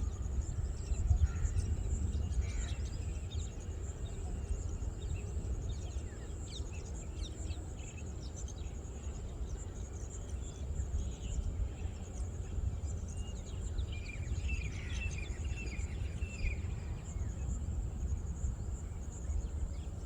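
Outdoor ambience: a steady low rumble, a continuous thin high buzz like insects, and scattered bird chirps, with a cluster of chirping about two thirds of the way through.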